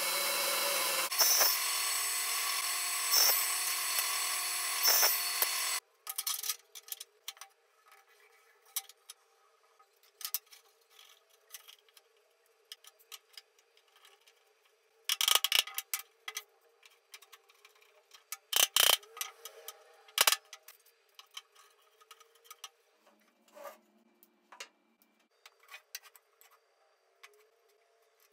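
Table saw ripping a wooden board: a steady, loud cutting noise that stops abruptly about six seconds in. After it come scattered knocks and clicks of wooden boards and a clamp being handled, loudest in a few clusters in the middle.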